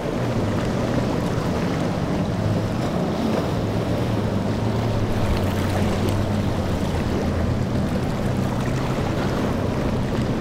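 Outboard engines of a Scout center-console boat, twin Yamaha 150s, running steadily at speed as a low drone. Wind buffets the microphone and waves splash.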